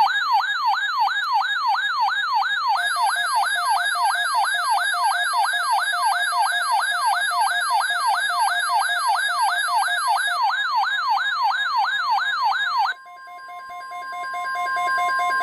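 Electronic emergency alert siren rising and falling quickly, nearly three sweeps a second, with a steady tone under it from about three seconds in. About thirteen seconds in the sweeping stops and a steady alert tone near 1 kHz holds, the weather radio's warning tone before the announcement.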